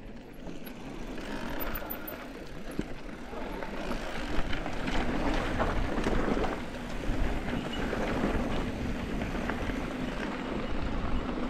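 Mountain bike rolling along a dirt and gravel trail: tyre noise and wind rumble on the camera microphone, with scattered clicks and rattles from the bike over the rough ground.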